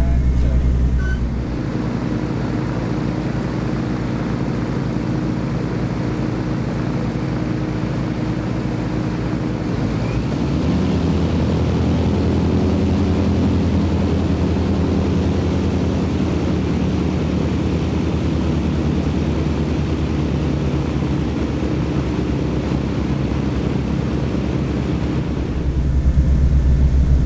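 Avro Shackleton's Rolls-Royce Griffon V12 piston engines running at ground idle, driving contra-rotating propellers, with a steady drone. About ten seconds in the sound turns louder and deeper.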